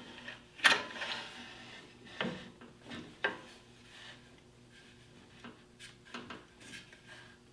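Handling noise as a wooden board is set on a metal band saw jig and pushed against its fence and carriage: a few sharp knocks and clicks in the first few seconds, then softer scattered taps.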